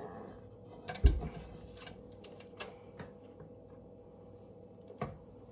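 Handling noise around a metal baking sheet of cookies: one firm knock about a second in, then a few light clicks and taps, over a faint steady hum.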